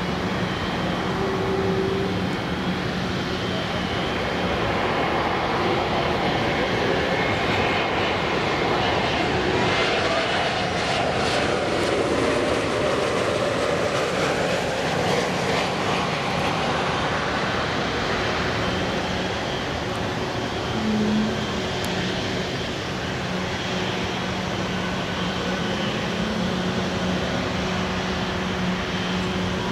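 Jet airliner flying past, a steady rush of engine noise that sweeps down and back up in pitch as it goes by, around the middle. A steady low hum runs underneath.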